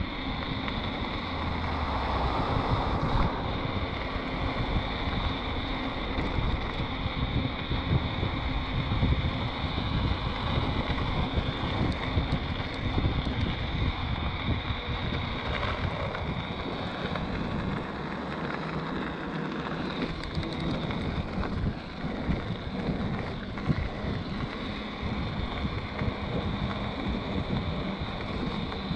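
Wind buffeting the microphone and tyres rolling on asphalt as an electric mountain bike rides along, with a steady high whine, likely from its Bosch mid-drive motor.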